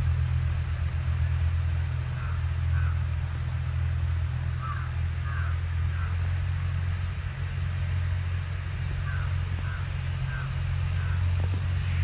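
Steady low rumble of a distant John Deere 5105 tractor's three-cylinder diesel engine, running under load while pulling a harrow.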